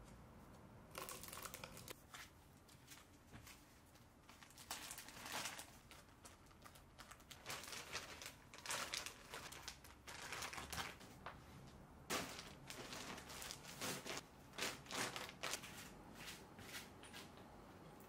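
Irregular crinkling and rustling in short bursts, on and off, of something crinkly such as plastic or paper being handled.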